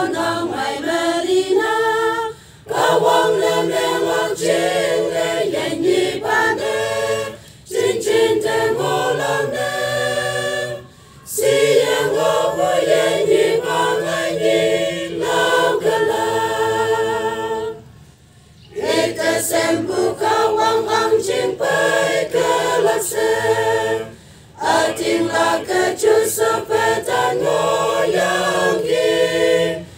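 Mixed choir of women's and men's voices singing a Passion Week hymn a cappella, in phrases separated by short pauses for breath.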